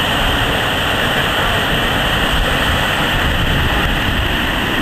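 Whitewater rapid pouring between large boulders: a loud, steady rush of water.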